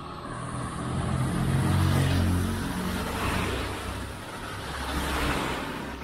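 Road traffic passing close by: engine and tyre noise swell to a peak about two seconds in, fade, then swell again more softly near the end as a second vehicle goes past.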